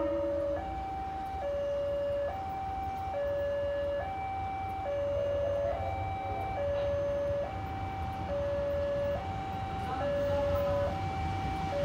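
Railway level-crossing warning alarm sounding its two-tone electronic signal, a lower and a higher note alternating evenly, each held just under a second, over a low rumble. It signals an approaching train.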